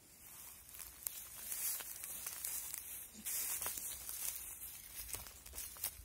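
Footsteps crunching through dry grass and stubble: an uneven rustling crackle with scattered sharp clicks.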